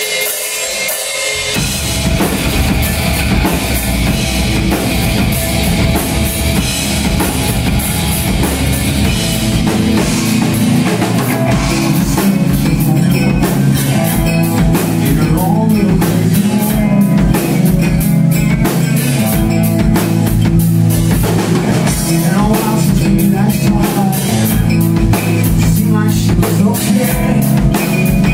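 Live rock band playing loudly, with electric guitar, bass and drum kit. The full band comes in about two seconds in.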